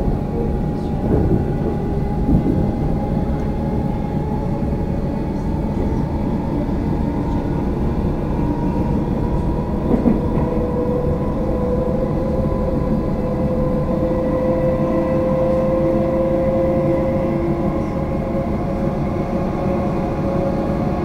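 Inside a Comeng electric suburban train running at speed: a steady rumble of wheels on rail, with a whine that climbs slightly in pitch about halfway through. Now and then a wheel knocks over the track.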